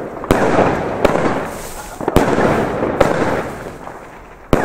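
Panda 'Night Wish' 200-gram firework battery firing its shots: five sharp bangs about a second apart, each followed by crackling from the breaking shells.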